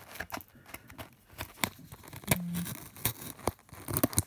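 Packing tape on a cardboard parcel box being scratched and picked at by hand: a string of short, sharp scrapes and clicks, with a brief low hum a little over two seconds in.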